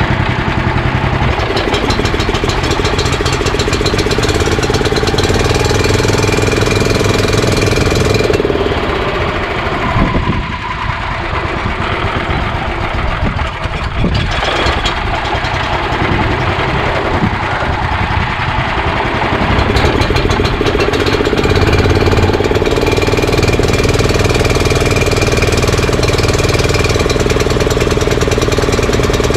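Honda GX340 single-cylinder engine running steadily. Its sound changes for a stretch in the middle and settles back to the same steady note about 21 seconds in.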